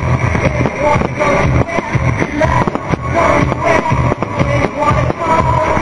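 Loud rock-style show music with guitar, with many sharp hits running through it, played over a fireworks display's sound system.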